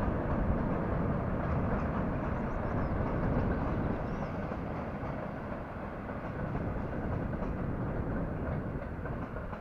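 Passenger train running past, a steady noise of wheels on rails that eases off slightly about four seconds in.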